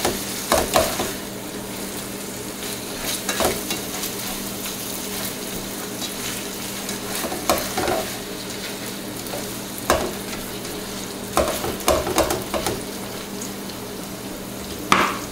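Ground beef (85% lean) sizzling steadily as it browns in a nonstick frying pan, with a slotted plastic spatula scraping and stirring the meat in short strokes every few seconds.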